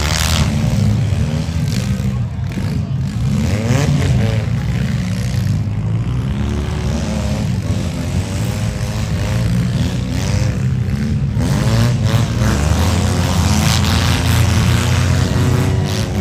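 Engines of several compact demolition-derby cars running and revving together, their pitch rising and falling as the drivers accelerate.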